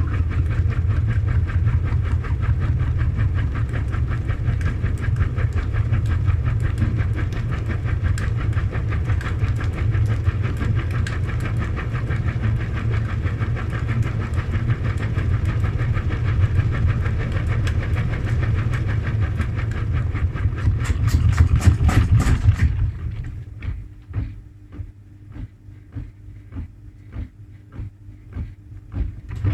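Front-loading washing machine spinning an unbalanced load: a loud, steady drum rumble with rapid knocking. About 23 seconds in the spin cuts off, leaving softer scattered thumps from the slowing drum and a faint hum.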